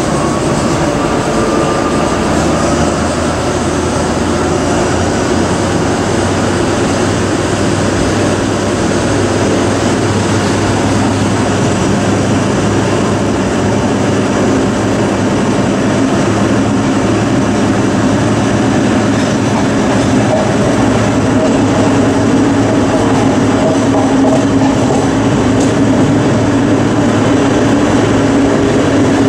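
Diesel engine of a MÁV M43 diesel-hydraulic shunting locomotive running steadily while under way, heard from inside the cab, with a faint rising whine in the first few seconds. The drone grows a little louder over the last third.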